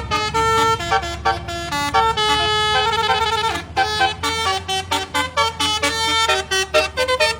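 A bus's 'basuri' telolet musical horn playing a quick melody of short honking notes, with a longer warbling chord held from about two to three and a half seconds in. The bus engine hums steadily underneath.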